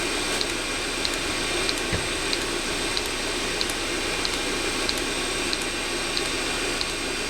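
Eberspacher D1L diesel heater running through a start attempt: its combustion-air blower gives a steady whirring hiss while the fuel dosing pump ticks about one and a half times a second. The heater has not yet lit.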